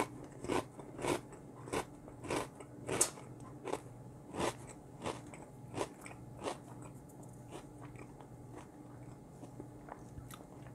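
A person chewing a mouthful of Chipstar stacked potato crisp with the mouth close to the microphone: a run of crunches about one and a half a second, fading out after about six and a half seconds as the crisp is ground down, then only faint chewing.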